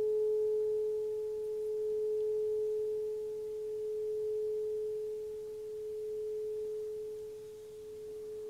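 Metal singing bowl ringing with one steady, pure tone that slowly swells and dips in loudness and gradually fades. A fainter higher overtone dies away about two-thirds of the way through.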